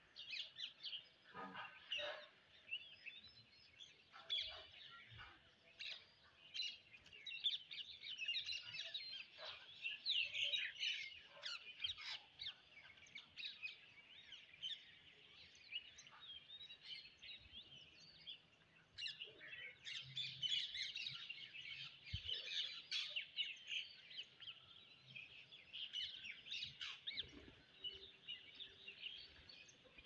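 Rose-ringed parakeets chattering: a dense, unbroken stream of short high chirps and calls.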